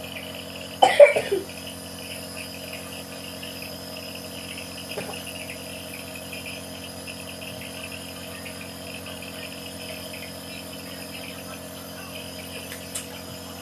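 A person coughing in one short burst of a few coughs about a second in, the cough of someone with a cold. Insects chirr steadily under a low hum throughout.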